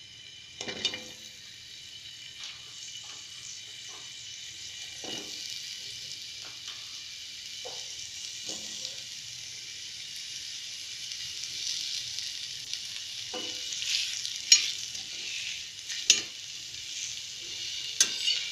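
Sliced onion sizzling in hot oil on an iron tawa, the hiss growing a little louder as more wedges go in. Sharp taps and pops break in now and then as onion pieces drop into the oil.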